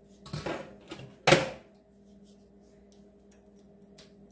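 The small wire frying basket of a Farberware deep fryer is handled with a brief rattle, then clanks once, sharply, against the fryer's stainless steel housing as it is hooked on, about a second in. A faint steady hum runs underneath.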